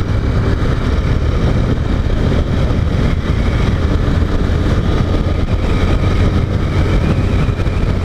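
Motorcycle engine running steadily at a constant road speed, with wind rushing over the helmet microphone.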